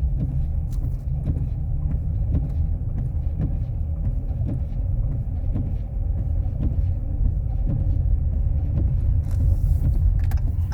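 Steady low rumble of a car driving, the engine and tyre noise heard from inside the cabin, with a few faint ticks.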